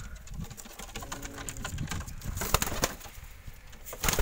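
Domestic pigeons cooing softly, with a few sharp knocks and scrapes from hands working inside the wooden cage.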